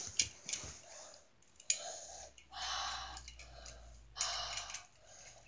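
Light plastic clicks and knocks of a toy monster truck being handled and set down on a leather couch cushion, followed by four short soft hissing noises.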